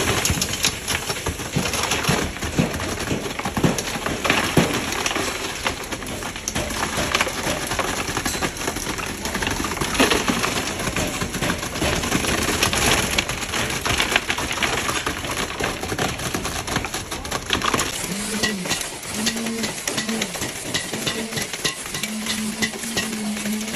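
Wet concrete pouring from the end of a concrete pump hose into stair formwork: a continuous spattering hiss thick with small clicks of aggregate. About three-quarters of the way through, the spatter thins and a low hum comes and goes.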